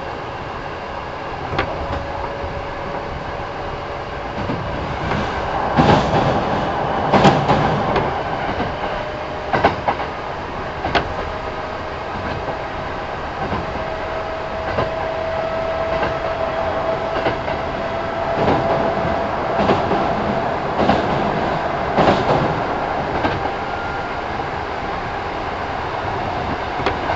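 Kintetsu 1000 series electric train running, heard from inside the car. The wheels clack over rail joints now and then, often in quick pairs, over a faint whine that rises slowly in pitch.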